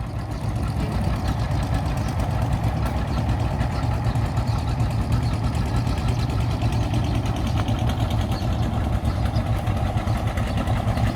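An engine running at a steady speed, with a rapid, even beat and a strong low hum.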